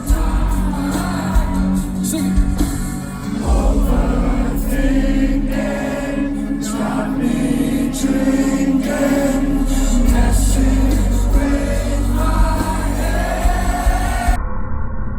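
Loud live concert music heard from the audience: an amplified band with sung vocals and a crowd singing along. The sound turns muffled shortly before the end.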